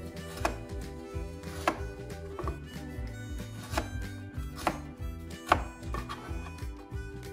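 Chef's knife chopping a carrot into cubes on a plastic cutting board: a series of irregular sharp taps of the blade striking the board, over soft background music.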